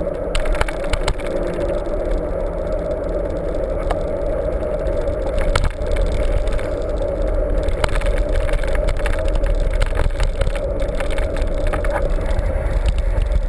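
Mountain bike riding: a steady noise of tyres rolling and wind on the microphone, with scattered sharp rattles and clicks from the bike.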